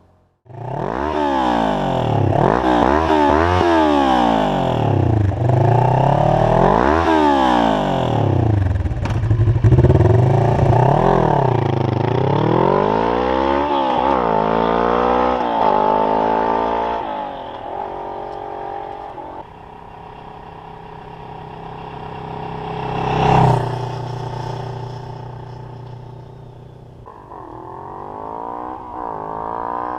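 A Kawasaki ER-6n's 650 cc parallel-twin engine is blipped over and over through its exhaust. The pitch climbs and falls every couple of seconds. About halfway through it settles to lower, steadier running, with a brief loud swell a little later and the revs rising again near the end.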